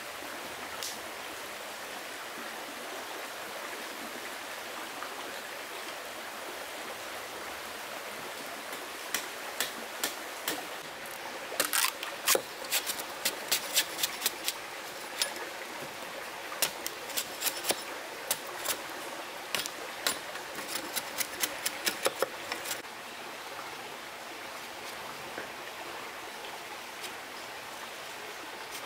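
Stream water running steadily. From about a third of the way in until about three-quarters through, it is broken by a long run of sharp, irregular clicks and taps.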